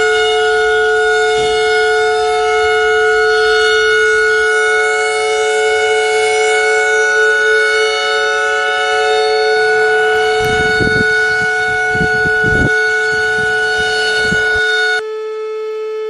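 Outdoor warning siren sounding a long steady tone, with gusts of wind buffeting the microphone several times in the second half. Near the end the sound cuts abruptly to a thinner-sounding recording of a similar steady tone.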